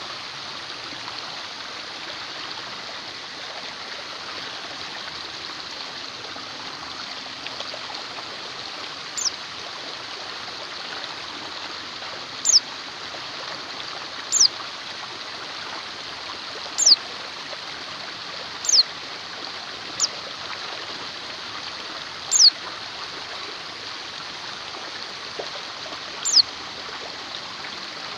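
Steady rush of a running stream, with a small bird's short, high chirps, each falling in pitch, coming every two to four seconds from about nine seconds in.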